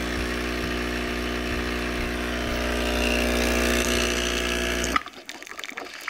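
Cuisinart espresso machine's pump running steadily with a hum, pushing hot water through the packed grounds to brew a two-cup shot. It cuts off abruptly about five seconds in, ending the brew.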